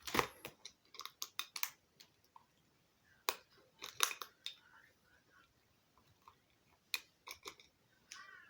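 Irregular sharp clicks and taps of a pet crow's beak pecking and snapping at food being hand-fed to it, with a short squeak near the end.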